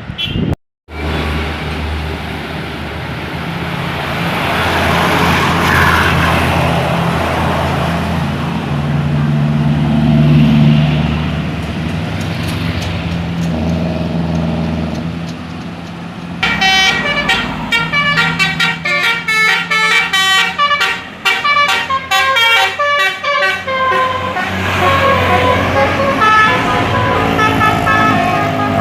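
A tour bus's engine running as it comes up. About halfway through, its basuri "telolet" musical air horn plays a fast tune of short notes, which goes on in longer, wavering notes near the end.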